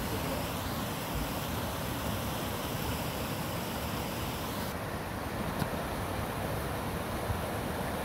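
Creek water rushing steadily, an even rushing noise; its higher hiss thins a little about halfway through.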